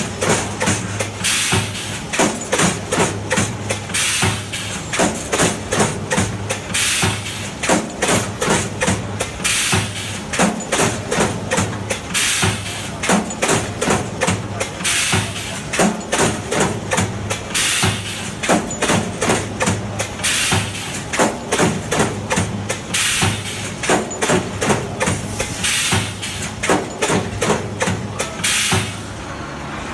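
Automatic multi-head resistance spot-welding machine working on wire mesh: rapid clacking of the welding heads, with a louder burst of hiss about every three seconds over a steady electrical hum. The noise stops near the end.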